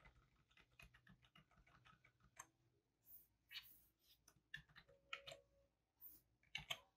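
Near silence: room tone with faint scattered clicks of computer keys being pressed, a few slightly sharper in the second half.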